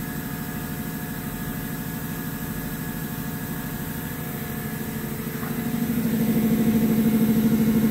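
SHW CNC horizontal machining center running as its axes traverse to their reference points: a steady machine hum with a fast, even pulse, growing louder and stronger in tone about five and a half seconds in.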